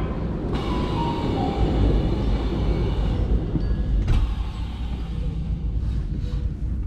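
Commuter train running with a steady low rumble, a hiss rising over it from about half a second in to about three seconds, and a sharp click about four seconds in.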